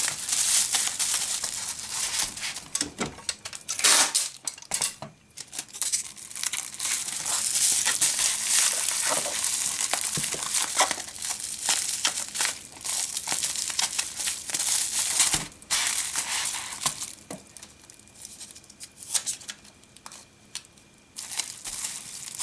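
Wrapping material crinkling and crumpling in irregular handfuls as a small package is wrapped by hand, with scattered sharp crackles. It gets sparser and quieter after about two-thirds of the way through.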